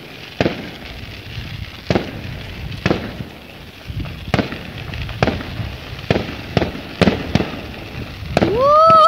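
Fireworks going off in an irregular string of sharp bangs, roughly one a second, each with an echoing tail. Near the end a loud pitched sound sweeps upward and holds.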